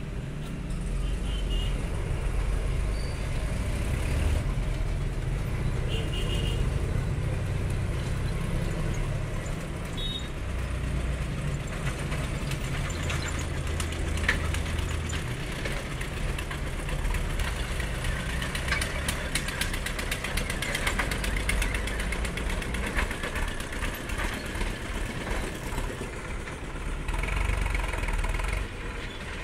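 Engines of tractors and motorcycles running steadily as they cross a railway level crossing. A few short high beeps sound now and then.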